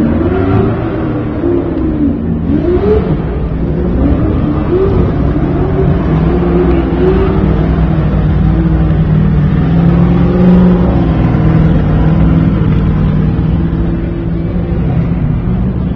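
Off-road race truck engines revving hard, the pitch climbing and dropping again and again in quick succession, then held at a steadier high pitch from about six seconds in.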